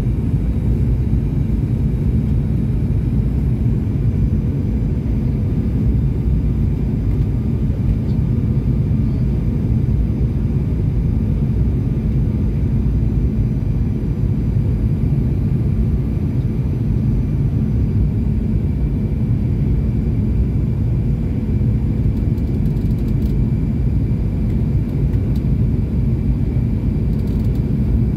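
Steady airliner cabin noise on the landing approach: a loud, even low rumble of engines and rushing air, with a few faint steady tones over it.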